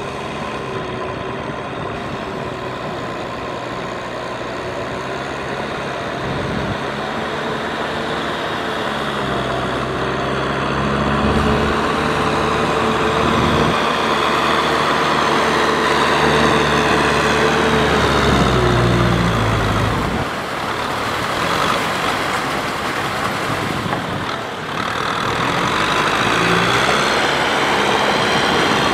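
Kubota M6040SU tractor's four-cylinder diesel engine running under load while pulling a rotary cultivator through deep paddy mud. The engine note drifts up and down and grows louder through the middle, with a brief dip about two-thirds of the way in.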